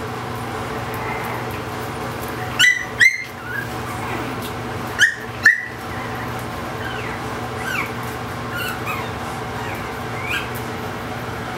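Boston Terrier puppies yelping and squealing as they play-fight: two pairs of sharp, high yelps about three and five seconds in, then fainter short squeaks and whines, over a steady low hum.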